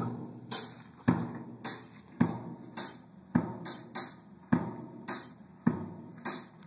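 A song's rhythm track playing back over studio monitors: a slow, even beat alternating a low kick-like thump with a bright high hit, roughly one hit every half second.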